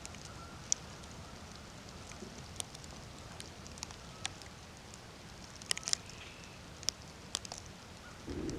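Outdoor ambience: a steady low wind rumble with scattered sharp little ticks and crackles at irregular moments, a cluster of them about six seconds in. A fuller, lower rush begins near the end.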